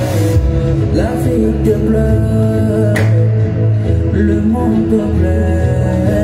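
Loud live music over a stadium sound system: a heavy bass line under held chords, with some singing.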